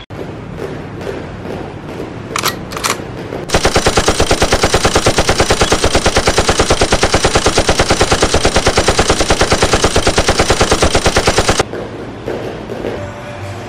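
A long, rapid-fire train of sharp, evenly spaced bangs like machine-gun fire, starting a few seconds in and cutting off abruptly about eight seconds later. Scattered softer clicks come before it.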